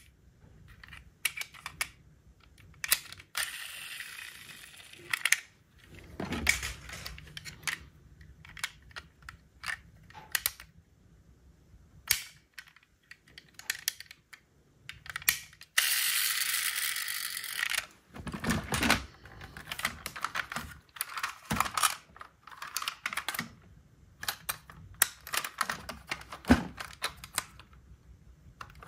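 Small diecast metal model cars being handled: a run of clicks and clacks as their small doors and parts are opened, shut and turned, with two longer stretches of steady rasping noise of about two seconds each.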